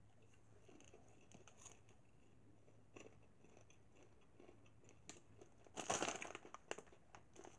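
Mostly quiet, with faint scattered clicks; about six seconds in, the plastic snack bag of popcorn crinkles briefly as it is handled.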